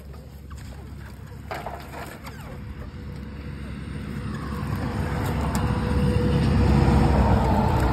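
A road vehicle passing close by: engine and tyre noise that builds steadily from about three seconds in and is loudest near the end.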